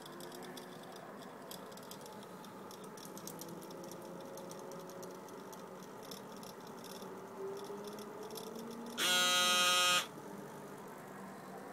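Electronic buzzer beeping once, a loud steady tone for about a second that starts and stops abruptly near the end. Before it, a faint whine slowly rises in pitch.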